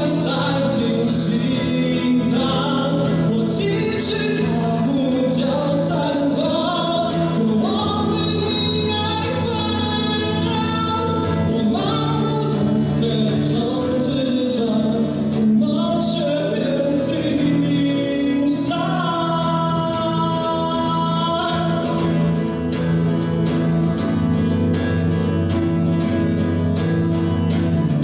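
A man singing a song solo, accompanying himself on a strummed acoustic guitar, the voice rising and falling in long sung phrases over steady strumming.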